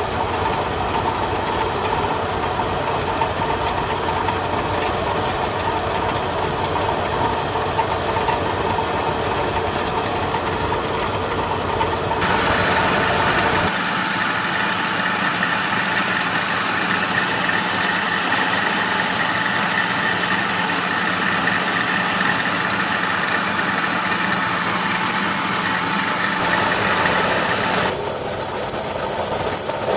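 Machine tool running an 8 mm end mill cutting a slot through metal between drilled holes, a steady motor and cutting noise. Its tone shifts a few times as the cut changes.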